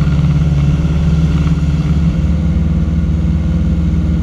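Single-engine light aircraft's propeller engine droning steadily in flight.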